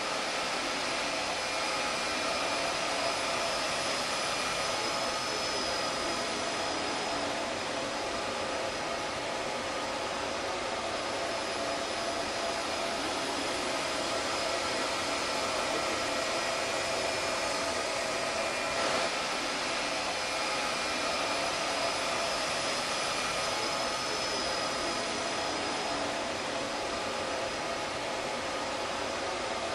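Steady fan noise from rack-mounted network equipment in a lab equipment room: an even hiss with several constant whining tones over it, unchanging throughout.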